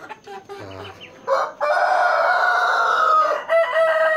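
Ayam kampung (Indonesian village chicken) rooster crowing loudly in a long drawn-out crow starting about a second and a half in, with another crow beginning near the end.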